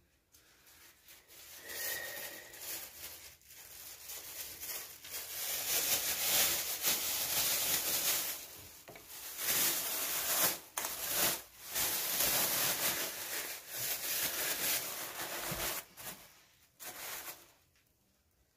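Thin plastic bag crinkling and rustling in uneven bursts as it is stretched over a bowl of dough to cover it for rising. It starts a second or two in and stops shortly before the end.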